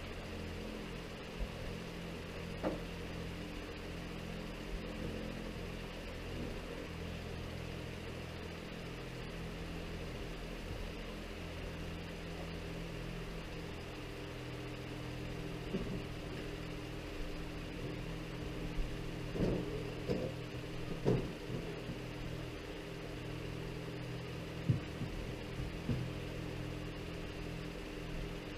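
Steady low hum with several pitched lines, with a few short knocks and bumps as a large framed mirror is handled and set against a wall, most of them about two-thirds of the way through.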